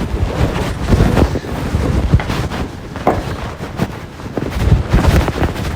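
Loud rumbling and rubbing noise on a phone's microphone, with a string of irregular knocks and clatters from hands working on the parts.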